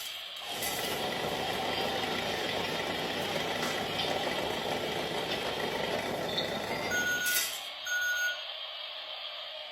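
Washing machine running with a steady rushing, churning noise, which stops about seven and a half seconds in; around then the machine's panel gives two short electronic beeps a second apart.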